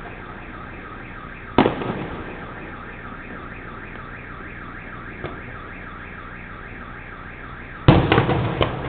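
Fireworks shells bursting: one sharp bang about a second and a half in, then a quick cluster of bangs near the end. Under them a high electronic warble repeats several times a second without a break.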